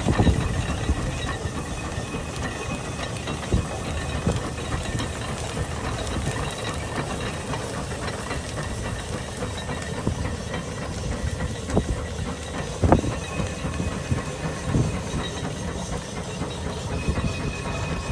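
Case 150 steam traction engine working under load pulling a plow, a steady hiss of steam with a few scattered knocks, the sharpest about two-thirds of the way through.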